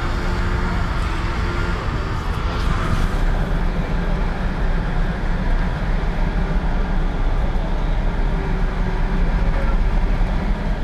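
Steady low rumble of diesel engines from heavy road-repair machinery, an asphalt paver and a dump truck laying asphalt, mixed with street traffic.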